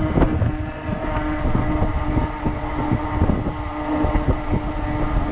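Gusty wind buffeting the microphone while riding a 48-volt fat-tire e-bike into a headwind. Under the wind runs a steady hum from the e-bike's hub motor under power.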